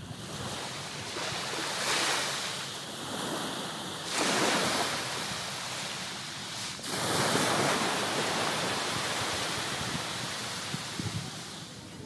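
Small ocean waves breaking and washing up a sandy beach, the surf swelling louder about three times as each wave comes in.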